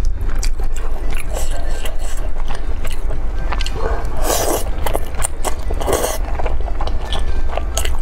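Close-miked eating of thick noodles in sauce: wet chewing and mouth clicks, with two longer slurps about four and six seconds in. A steady low hum runs underneath.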